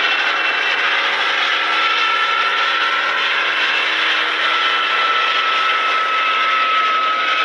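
Bell 47 helicopter's piston engine and rotor running steadily, with a steady high tone over the engine noise.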